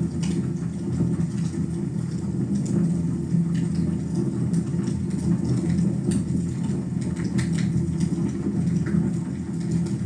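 Wood fire burning in a fireplace: a steady low rumble from the flames with scattered sharp crackles and pops.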